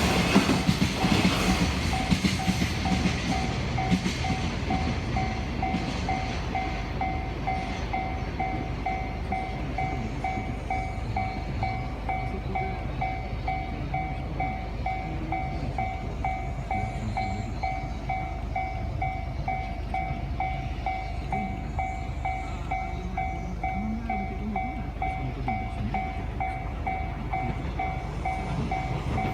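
Japanese level-crossing alarm ringing about twice a second, going on and on while the barriers stay down. Under it a train runs over the tracks with a rumble that is loudest in the first few seconds and then settles to a lower, steady run.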